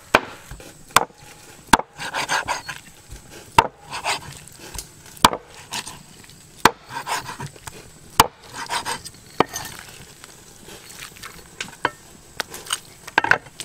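Chopping: a blade striking wood with a sharp knock every second or two, irregularly spaced, with scraping and rustling between the strokes.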